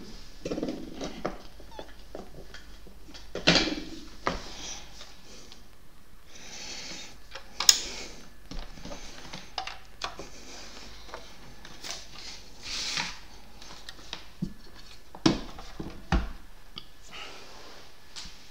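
Cables and connectors being unplugged and plugged in by hand: scattered clicks and knocks with rustling in between, the sharpest click about seven and a half seconds in.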